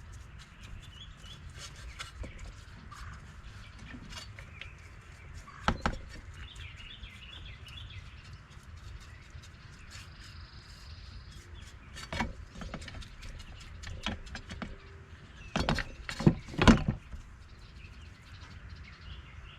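A few sharp knocks and clatters of metal tools being handled, the loudest a quick cluster about two thirds of the way in. Small birds chirp in the background.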